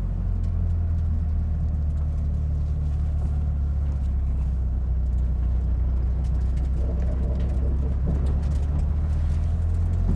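A 1977 Toyota Celica RA28's engine running steadily at low speed, heard from inside the cabin, while the car is driven slowly through a tight turn on full steering lock.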